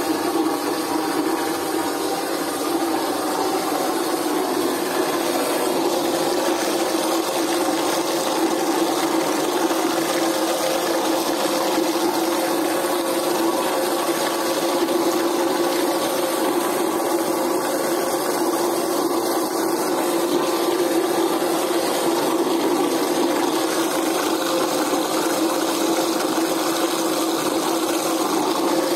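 Homemade electric soap mixer, a motor under a plastic bucket spinning a blade, running steadily and whirling used cooking oil and caustic soda into a vortex to make soap. It gives a constant, even motor hum.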